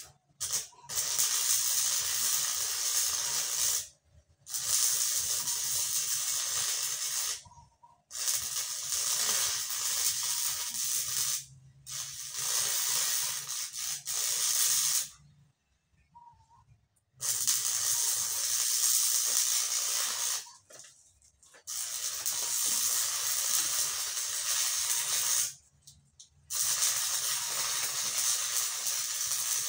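Electric arc welding: crackling, sizzling hiss in about seven runs of three to four seconds each, broken by short pauses as the arc is struck and stopped.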